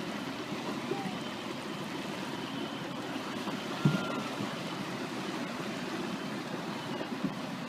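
Steady rushing background of surf and murmuring crowd during a lull in a fireworks display, with one short sharp pop about four seconds in and a smaller one near the end.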